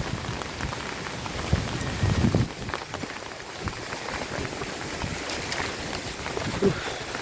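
Steady hurricane rain falling and pattering on surfaces, with a few dull low bumps about two seconds in and again near the end.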